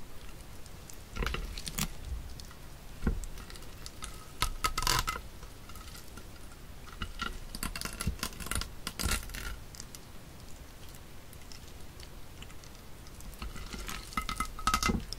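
Live octopus handled by hand: wet, sticky crackling and squelching as its tentacles and suckers are pulled off a ceramic plate and off the fingers, in several irregular bursts.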